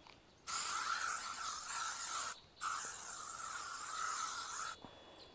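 Insect repellent sprayed from a hand-held spray bottle onto trouser legs: two long hissing sprays of about two seconds each, with a brief break between them.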